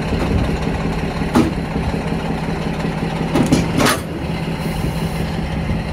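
Semi truck's diesel engine idling steadily, heard close beside the drive wheels, with a few brief knocks in the middle.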